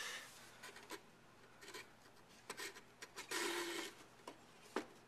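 Mac Pro memory riser card being slid and pressed into its slot by hand: light scrapes and clicks of the card against the metal case. There is a longer scrape a little past the middle and a sharp click near the end.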